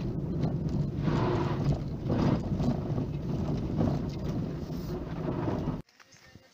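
Car interior noise while driving on a frozen, snowy road: a steady low engine and tyre rumble with a few louder surges of road noise. It cuts off suddenly near the end.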